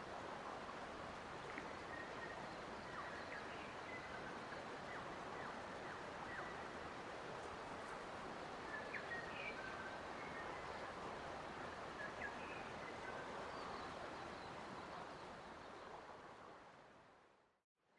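Steady rush of flowing water with small bird chirps scattered through it. Near the end the whole sound fades out to near silence and then fades back in.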